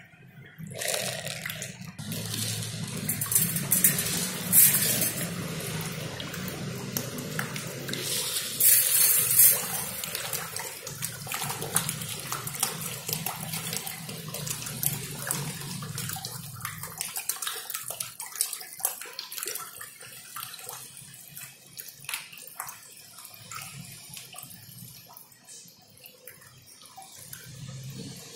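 Red tilapia splashing and churning the water at the surface of a crowded concrete pond as they take pellet feed, loudest in two surges early on and dying down to scattered splashes. A low steady hum runs under it and stops about two thirds of the way through.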